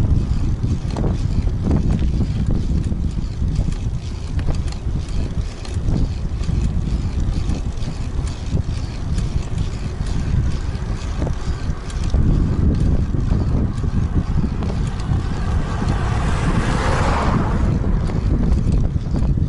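Wind buffeting the microphone of a camera on a moving bicycle: a loud, steady low rumble. About three seconds from the end, a louder rushing sound swells and fades over a second or so.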